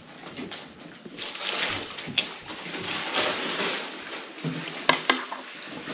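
Hand handling of an ATI Super Damper's metal hub and bolts: rustling and scraping, with a few light metallic clicks, one about two seconds in and two close together near the end, as the bolts are set into the damper by hand.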